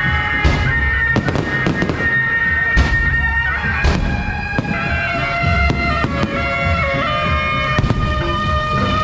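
Fireworks cracking and banging at irregular intervals over a reedy wind-instrument melody played on long held notes.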